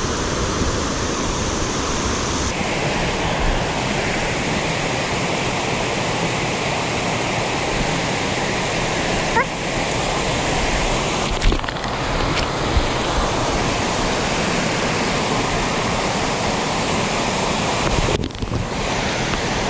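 Creek water rushing steadily: a constant, even wash of flowing water.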